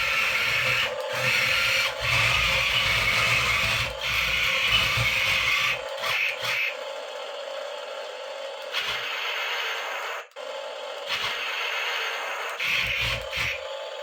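Toy remote-control battle tank being driven: its small motors, gearbox and plastic tracks whir and scrape in spurts of a second or two. The noise is louder for the first six seconds or so, then fainter and more broken.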